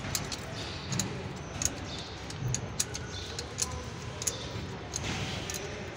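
Light, irregular metallic clicks and clinks of truck brake parts and tools being handled, several a second, over a low steady hum.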